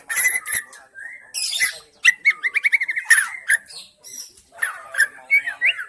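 White-rumped shama calling: a string of harsh, chattering calls, with a rapid trill of about ten notes a second about two seconds in.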